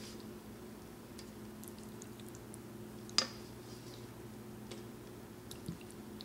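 Quiet kitchen with a steady low hum, a few faint ticks, and one sharp clink of kitchenware about halfway through.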